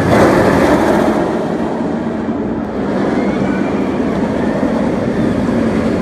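Steel inverted roller coaster trains running past on the track: a dense rumble of wheels on steel rail, loudest in the first second, with a second pass after a cut about three seconds in.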